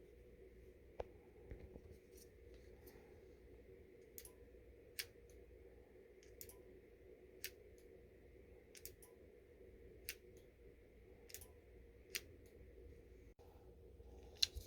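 Faint, sharp clicks about once every second over a steady low hum.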